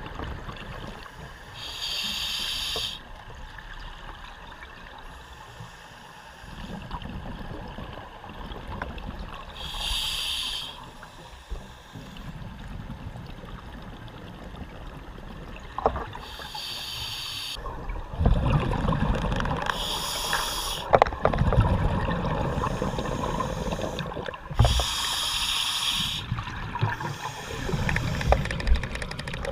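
Scuba diver breathing through a regulator underwater: five bursts of exhaled bubbles rush out, a few seconds apart, over a low underwater rumble. In the second half the rumble grows louder, with a few knocks.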